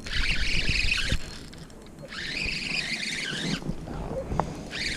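Spinning fishing reel whirring in three bursts of about a second each, with wind rumbling on the microphone.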